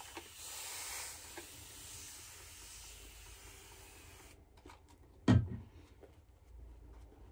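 Steady hiss of water running from a tap, cutting off about four seconds in. About a second later comes a single loud thump, then the soft sound of a shaving brush working lather on the face.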